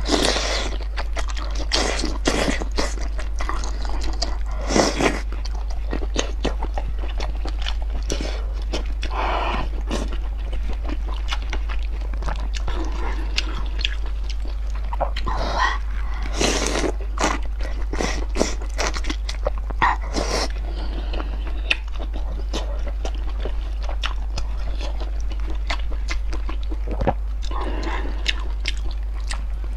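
Close-miked eating of noodles: slurping, chewing and wet mouth smacks come in short bursts with many small clicks in between, over a steady low hum.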